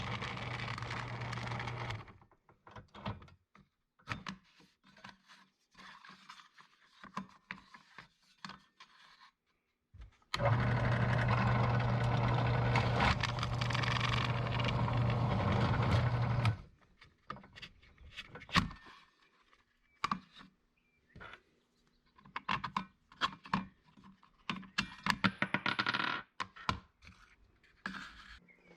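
Power drill drilling out bolt holes to take larger bolts: a short run at the start, then a steady run of about six seconds in the middle. Between and after the runs come scattered clicks and scrapes of parts and tools being handled.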